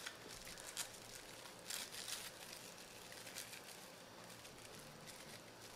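Faint, scattered crinkles and rustles of plastic cling wrap as hands fold and press it around a roll of sliced avocado and tuna.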